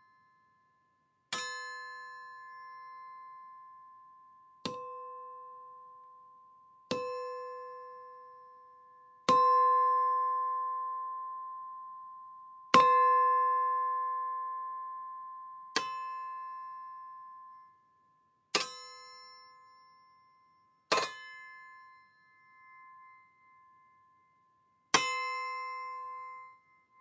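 A metal blade struck nine times, a few seconds apart. Each hit is a sharp clang that rings on in a clear, bell-like tone and fades over a few seconds.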